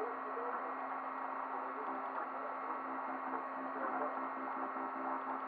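An open-frame desktop 3D printer printing: a steady fan hum under the stepper motors' short tones, which shift in pitch every fraction of a second as the print head moves.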